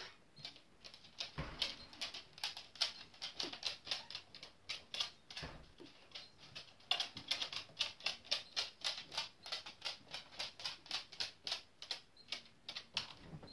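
Dog's claws clicking on a hardwood floor as it walks about: a long run of light, quick clicks, roughly three or four a second.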